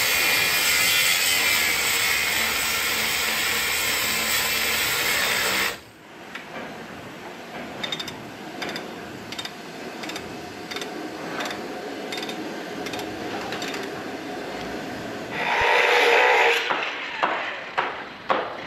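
A loud steady rushing noise that cuts off about six seconds in. Then a hand tool scraping and knocking in a manure gutter, a scrape or knock about once a second, with a louder rushing burst near the end.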